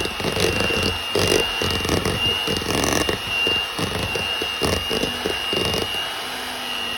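Electric mixer running steadily in a bowl, with a constant high whine from the motor and irregular knocks and scrapes as the beaters hit the bowl.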